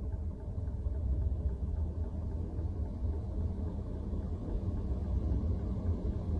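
A low, steady rumble.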